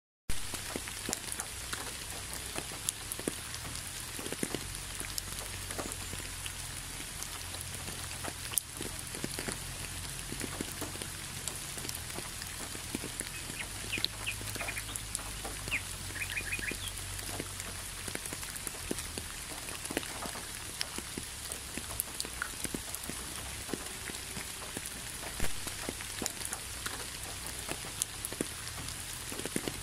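Steady rain falling, with scattered single drops ticking through it. A few brief high chirps come about halfway through.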